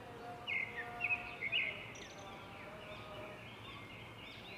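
Small birds chirping repeatedly, with a few louder, sharper chirps in the first two seconds over faint background noise.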